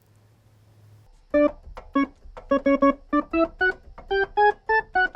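Technics SX-K200 electronic keyboard on its Organ 1 voice, played in short staccato notes that step mostly upward, a few repeated, as the keys are tried one by one. A faint low mains buzz from its speaker comes before the notes, about the first second.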